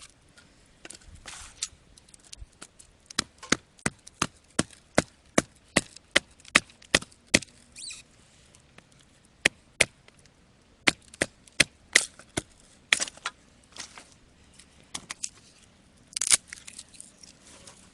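Firewood being chopped: sharp cracking strikes on wood in a steady rhythm of about two and a half a second. They come in two runs with a short pause between, and a few scattered knocks follow.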